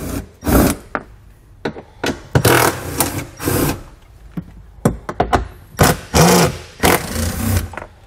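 Cordless driver with a 10 mm socket running in short bursts as it backs out the bolts holding a plastic cargo-floor cover, in about three groups of bursts with pauses as it moves from bolt to bolt.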